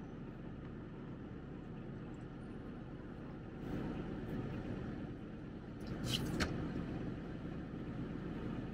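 Sherp ATV's diesel engine idling steadily, a low hum, with a brief sharp clatter about six seconds in.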